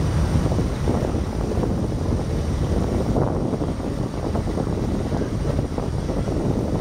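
Wind buffeting the microphone over the steady low rumble of a passenger motor ship's engine running while the ship moors alongside a pier.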